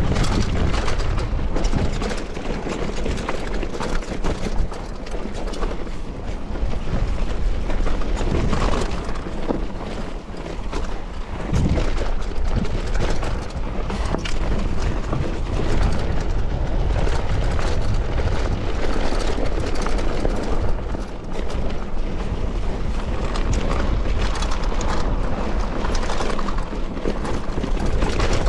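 Wind buffeting a GoPro Hero 10's microphone while riding a bike: a loud, steady, deep rumble with no engine note, easing briefly about ten seconds in.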